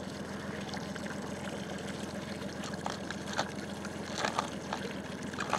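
Water lapping and trickling against a boat hull over a steady low hum, with a few faint clicks of fishing tackle being handled in the second half.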